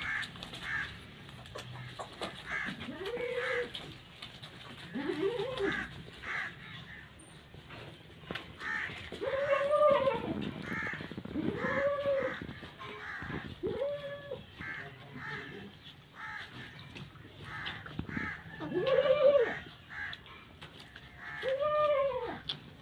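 Nursing mother dog giving seven howl-like cries that each rise and fall in pitch, with fainter, higher short calls in between.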